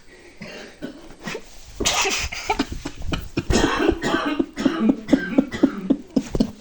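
A person snoring, breaking into a louder run of short, choppy sounds about two seconds in.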